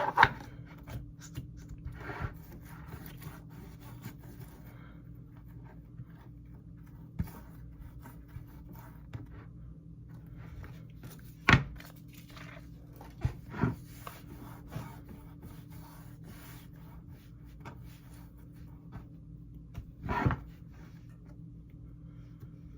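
Thick clear slime being handled and pressed back into a plastic container: soft rubbing and scraping with scattered small clicks, and a few louder clicks about halfway through and near the end.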